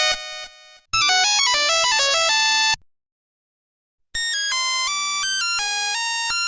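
Nokia 1100 ringtones played one after another: one tune drops away in steps and ends, a short quick melody plays about a second in, and after a gap of over a second another ringtone melody starts about four seconds in.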